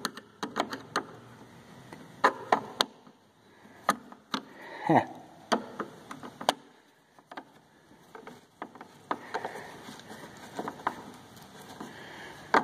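Flat-blade screwdriver turning the screw of a stainless worm-gear hose clamp on a leaf-vacuum hose: irregular clicks and scrapes as the band draws tight, with one short falling squeak about five seconds in.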